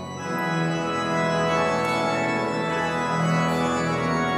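Organ music playing slow, sustained chords.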